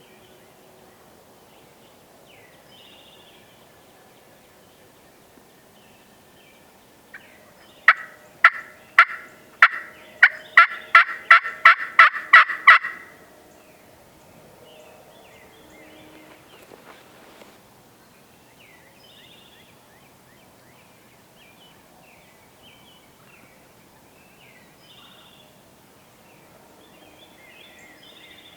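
A run of about a dozen loud turkey yelps, coming quicker and louder over about five seconds, with small songbirds chirping faintly around it.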